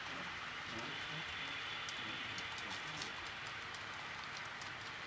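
HO scale model freight train rolling past: a steady rushing of small metal wheels on the track, with irregular light clicks.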